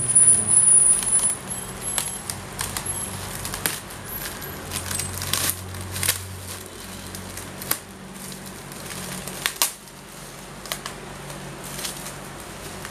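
Clear plastic wrapping being handled and pulled, crinkling and crackling in irregular bursts, loudest in the first second or so.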